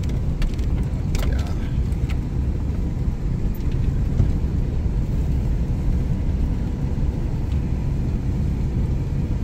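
Vehicle driving slowly on a lake ice road: a steady low rumble of engine and tyres, with a few knocks over the first two seconds.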